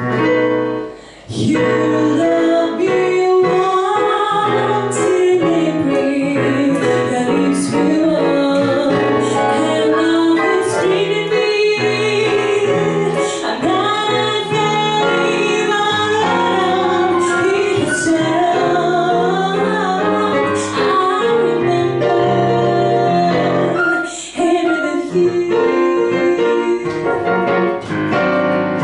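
A woman singing a jazz standard into a microphone, accompanied on a digital piano.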